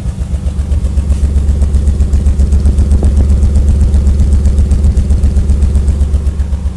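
Nissan 300ZX engine idling with a steady, rhythmic pulsing exhaust note and faint ticking over it: the popping exhaust sound that the owner suspects is an exhaust leak or bad catalytic converters.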